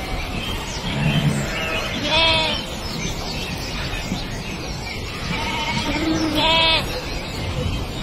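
A flock of sheep bleating, several calls overlapping, with the two loudest bleats about two seconds in and about six and a half seconds in.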